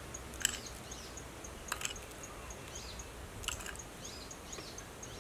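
Faint outdoor ambience: an insect ticking at a high pitch about four times a second, with a few short bird chirps and some light clicks.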